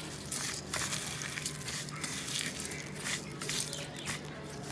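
Fingers crushing fried dried red chillies with chopped onion and garlic in a steel bowl, mixing a hilsa bharta by hand: irregular dry crunching and crackling that comes and goes.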